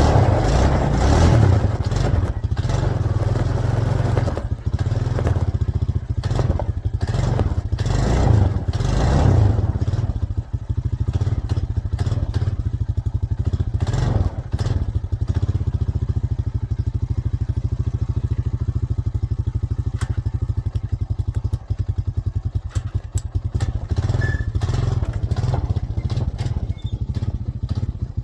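ATV (quad) engine running under load as it pulls on a chain to drag a hung-up dead tree loose, revving up hard at the start and again about eight to ten seconds in, then settling to a steady drone.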